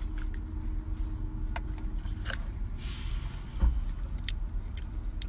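Soda being sipped through a plastic straw from a fast-food cup, with a few sharp clicks and one louder knock a little past halfway, over the steady low rumble of a car interior.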